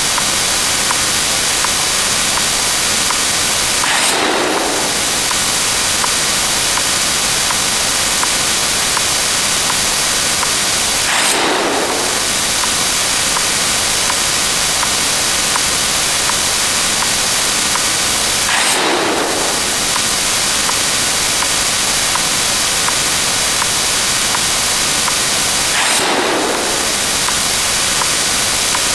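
A dense, steady wall of hiss-like noise made of many sound effects layered on top of one another, with a short sweep falling in pitch about every seven seconds, four in all.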